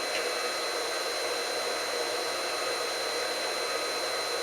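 Steady blowing noise, like a fan or blower, with a constant high whine over it; it does not change.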